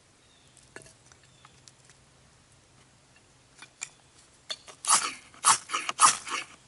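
A knife scraping along a ferro rod in about six quick, harsh strokes, striking sparks into a tinder bundle to light it. A few light clicks and taps come before the strokes.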